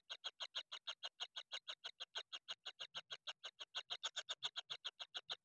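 Kingfisher nestlings giving a rapid, even run of short pulsed calls, about nine a second, without a break.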